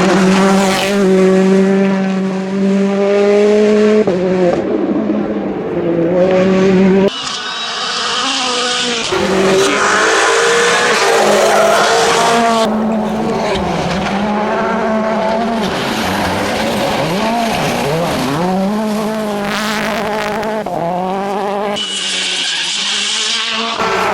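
World Rally Cars' turbocharged 1.6-litre four-cylinder engines revving hard and changing gear on a rally stage, with tyre squeal, in a string of short clips that cut abruptly from one car to the next.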